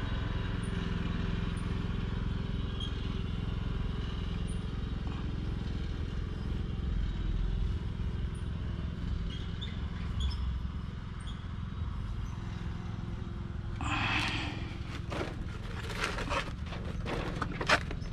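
Hand tubing cutter being turned around a copper water pipe, with faint small clicks. Near the end come a short burst of scraping hiss and several sharp scrapes and clicks as the cut works through, the loudest click just before the end. A steady low hum runs underneath.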